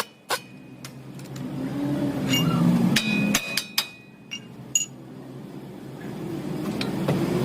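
Sharp metallic knocks and clinks, several with a brief ringing tone, as of a hammer or tools striking metal, over a low rumble that swells and fades.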